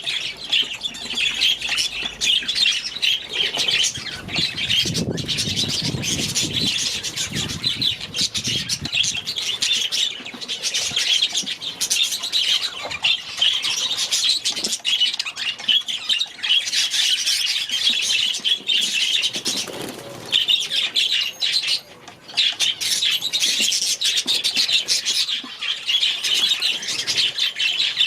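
A flock of budgerigars chattering and chirping continuously in rapid, overlapping warbles, with some wing flapping.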